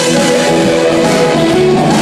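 Live rock band playing at full volume, electric guitars over keyboard, bass and drums.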